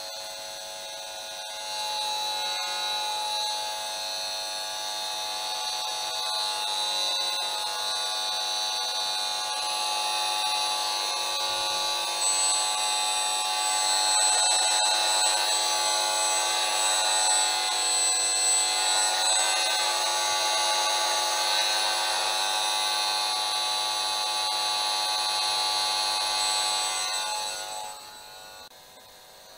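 Esmog Spion EMF meter's speaker giving its buzzing tone, the audio readout of the monitor's electric field. It gets louder about two seconds in as the meter is moved toward the monitor, and drops off sharply near the end as the meter is taken away.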